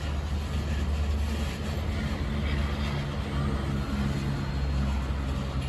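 Freight train flatcars rolling past, a steady low rumble of steel wheels on rail.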